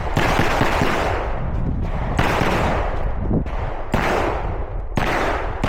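Pistol shots fired at a steady pace, about four within a few seconds, each sharp crack trailed by a long echoing tail.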